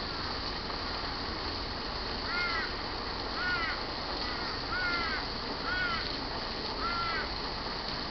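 A bird calling: five short, arched call notes, each rising then falling in pitch, about one a second, over a steady background hiss.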